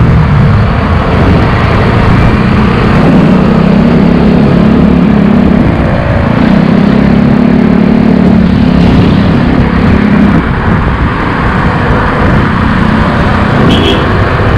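Steady, loud road and traffic noise heard from a moving e-bike on a town street, with a brief high-pitched beep near the end.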